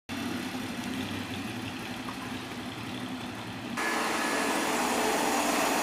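Engine of a motorised tourist road train running as it drives past. The sound jumps abruptly louder and rougher about four seconds in.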